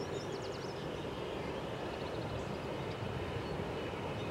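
Steady, distant rumble of jet aircraft engines with a faint high whine, and a few short high chirps about half a second in.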